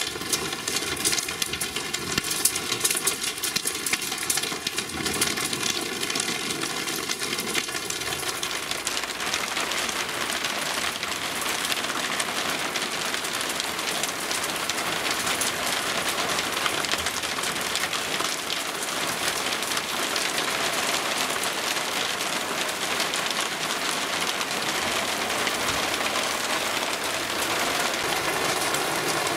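Cloudburst-intensity downpour falling steadily, mixed with pea-sized hail, with sharp hits standing out over the first few seconds.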